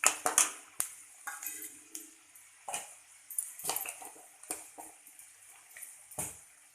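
A spatula knocking and scraping irregularly against a pan while dal and cashews fry in hot oil, with a faint steady sizzle under it.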